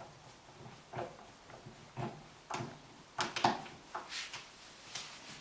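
Irregular metallic clicks and short scrapes of a screwdriver working on door-lock hardware as the mounting screws are driven in.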